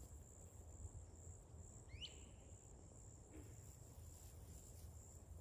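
Faint outdoor ambience: a steady high-pitched insect trill over a low wind rumble, with one short bird chirp about two seconds in.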